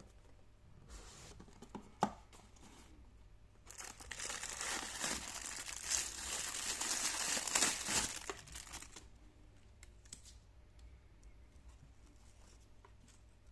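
Packaging being torn open and crinkled by hand: a sharp click about two seconds in, then a loud spell of tearing and crackling rustle from about four to nine seconds in, fading to a few light clicks.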